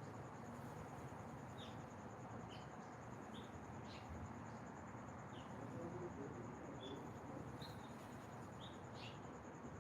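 Small birds giving short, high chirps, roughly one a second, over a steady high insect trill and a soft background hiss.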